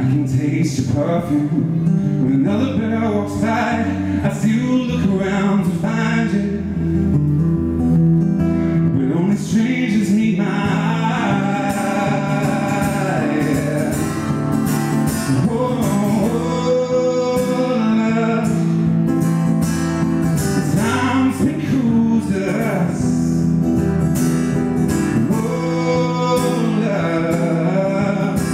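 Acoustic guitar strummed with a man singing over it, a solo live performance.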